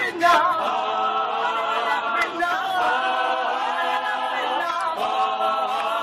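Group of young men singing a cappella in close harmony, several voices holding chords that shift about every second or so.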